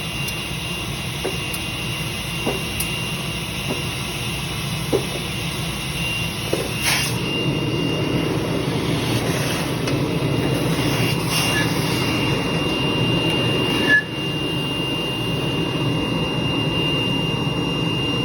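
Submerged arc welding running: a steady drone with a thin, high, constant whine over it. A few faint ticks come in the first several seconds, and there is one sharp click about fourteen seconds in.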